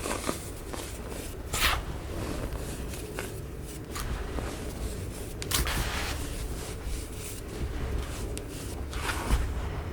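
Compacted baking soda crushed by hand, a squeaky, snow-like crunch. It comes in separate bursts, with three main crunches and faint crackling between them.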